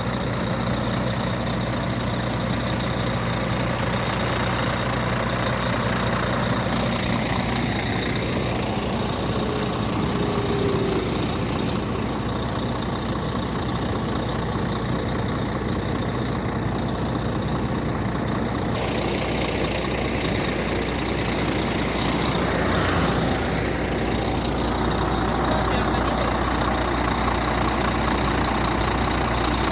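Heavy truck engine idling steadily, a constant low rumble.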